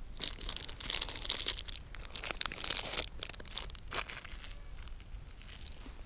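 Crinkly plastic snack-bar wrapper being torn open and crumpled by hand, with dense crackling for the first three seconds, a few sharper crackles near four seconds, then dying down.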